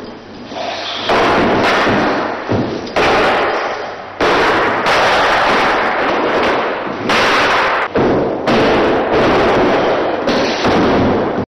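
A rapid series of loud crashing bangs, roughly one a second, each cutting in suddenly and fading out over about half a second.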